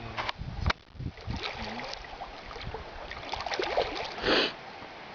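Water sloshing and splashing with a few knocks, and a short louder splash about four seconds in, as a caught taimen is held in the river water.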